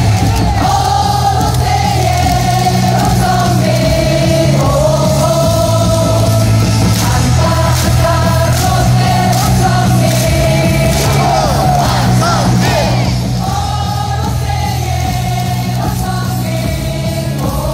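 Baseball stadium crowd singing a cheer song in unison along with loud amplified music over the PA, with a heavy steady bass line. The music drops a little in level about two-thirds of the way through.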